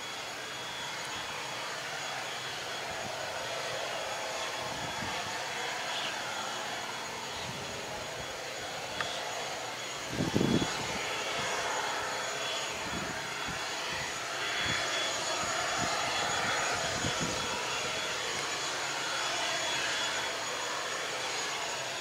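Airbus A320neo jet engines at low taxi power, a steady rushing noise with a thin high whine, as the airliner rolls slowly along the runway. A brief low thump about halfway through.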